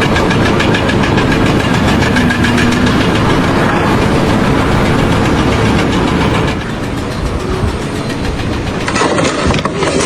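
A machine's engine running loudly with a fast, even clatter. The sound shifts about six and a half seconds in and again near the end.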